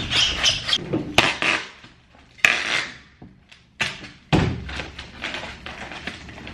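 Inflatable air-column plastic packaging being handled and pulled apart: crinkling, rustling plastic broken by several sharp clicks and knocks.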